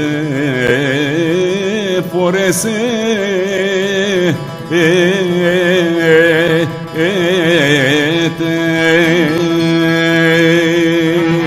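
A singer performing a slow Greek folk song from Epirus with heavily ornamented, wavering vibrato over a steady low drone. A sung word, 'φορέσετε' ('put on'), comes about two and a half seconds in, with short breaths between phrases.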